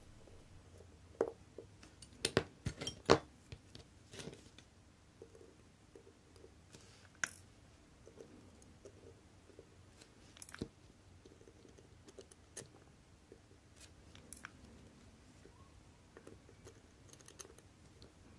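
Small, sharp metallic clicks and taps from a watchmaker's screwdriver working the screws of a watch movement's train and barrel bridge as it is taken apart. A few louder clicks come close together in the first few seconds, then fainter ones every second or two.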